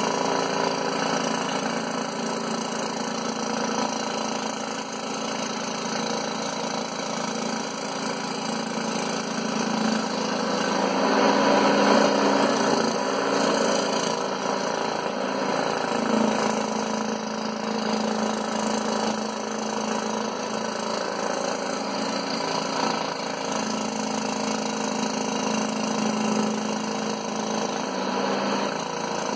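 Scroll saw running steadily, its reciprocating blade cutting through MDF, with a steady motor hum that grows somewhat louder for a few seconds around the middle.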